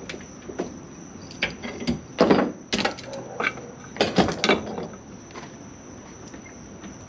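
Hand work at the edge of a fiberglass sailboat's deck: scattered clicks and knocks, with two louder, longer noises about two and four seconds in.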